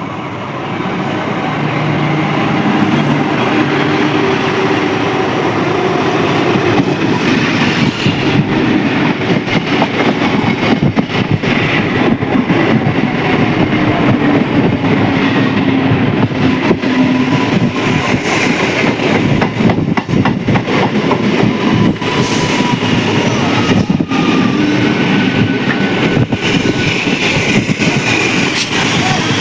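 A train running past close by: a steady rumble of wheels and carriages with rapid clickety-clack over the rail joints, growing louder over the first few seconds and then holding steady.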